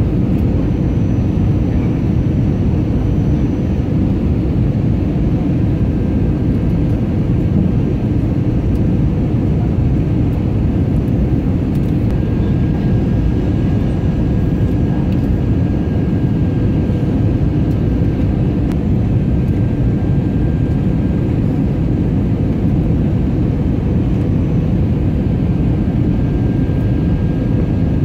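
Steady cabin noise inside a jet airliner descending to land: an even, low rush of airflow and engine noise, with a few faint steady tones above it.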